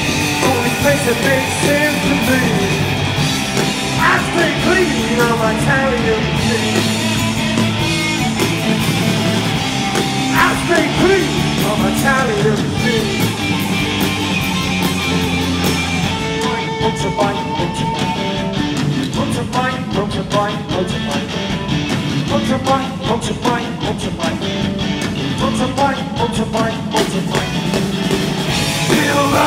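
Garage rock band playing live and loud: two electric guitars, electric bass and a drum kit.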